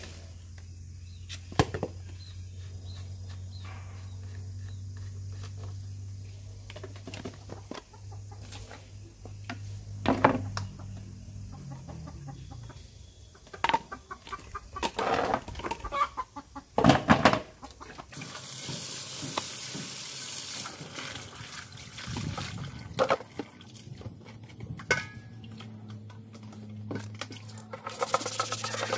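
Chickens clucking, with a few sharp knocks as hard plastic feeder parts are handled and set down, and a sponge scrubbing plastic near the end.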